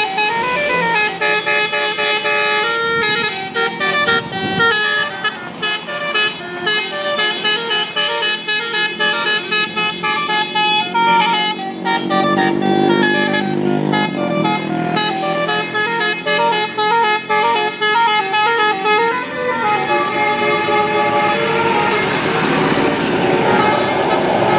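Vehicle horns sounding in quick runs of changing notes, one after another, with traffic noise underneath.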